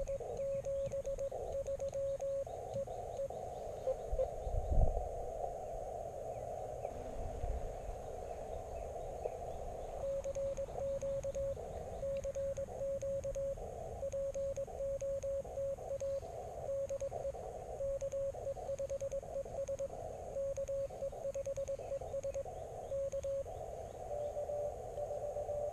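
Morse code (CW) from an Elecraft KX3 transceiver: a single mid-pitched beep keyed on and off in dots and dashes, over band hiss squeezed into the radio's narrow CW filter. A few soft low knocks come about four to five seconds in.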